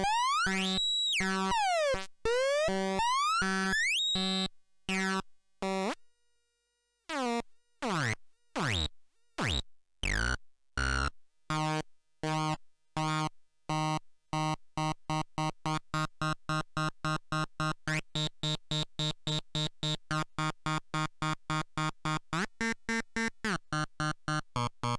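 A two-oscillator drone/noise synthesizer making buzzy bleeps that pulse on and off. In the first few seconds the pitch sweeps down and back up, and there is a short pause about six seconds in. From about halfway the pulses speed up into an even, rapid bleeping of about four a second.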